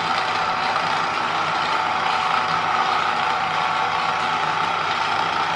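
Hot Wheels 2-Speed Power Booster's battery-driven motor and spinning booster wheels whirring steadily on the first speed, fairly loud (about 70 decibels on a phone sound meter).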